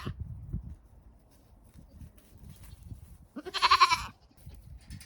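A goat bleats once, a wavering call lasting under a second, about three and a half seconds in; the tail of another bleat ends just at the start.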